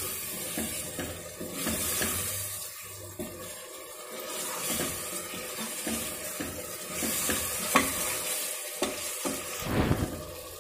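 Steel ladle stirring chopped tomatoes into masala frying in oil in an aluminium pressure cooker: the oil sizzles while the ladle scrapes and knocks against the pot, with a sharp clink a little before the end.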